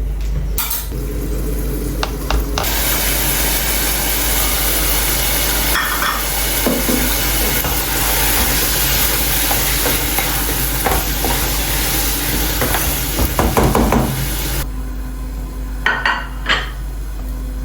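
Pressure cooker letting off steam in a steady, loud hiss that starts abruptly about two and a half seconds in and cuts off sharply near fifteen seconds in: the pressure being released after the beef has cooked. A few light knocks come before and after it.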